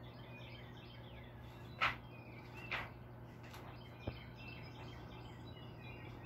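Faint small-bird chirping over a low steady hum. Two brief paper rustles of picture-book pages being turned come about two and three seconds in, and a single sharp click about four seconds in.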